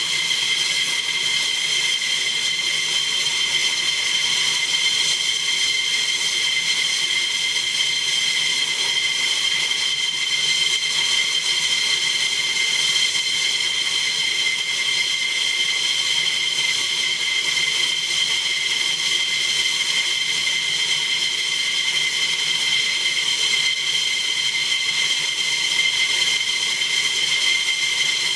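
F-15E Strike Eagle's twin jet engines idling on the ground: a steady high-pitched whine with several held tones that do not change in pitch or level.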